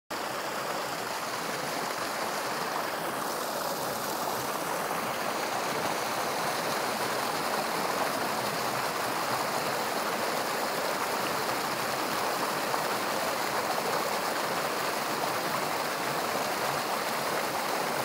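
Meltwater from thawing ice running steadily over rocks in a shallow, snow-banked mountain stream.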